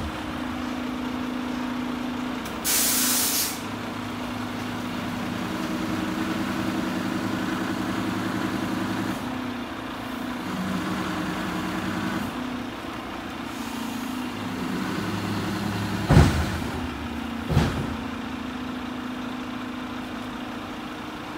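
Mack LR garbage truck running while the Heil Multipack's automated side arm lifts and dumps carts, its engine and hydraulics humming in a pitch that steps up and down as the arm cycles. A short air hiss comes about three seconds in, and two sharp bangs of a cart knocking against the arm or hopper come about three-quarters of the way through.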